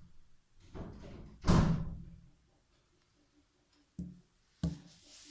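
Packaging being handled during an unboxing: a brief rustling slide about a second and a half in, then two sharp knocks as something is set down on a hard surface.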